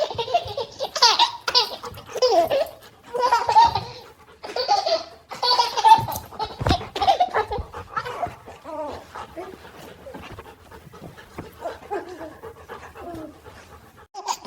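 Baby laughing in repeated bursts, with a puppy panting alongside; the laughter is loudest in the first half and fades to quieter vocal sounds later.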